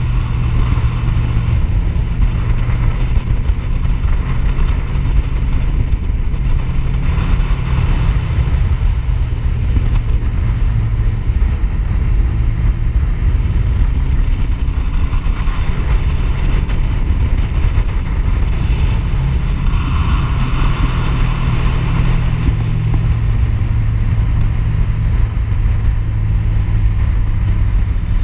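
Sport motorcycle riding along at a steady cruise: the engine runs at a fairly even pitch under a heavy low rumble of wind on the bike-mounted microphone.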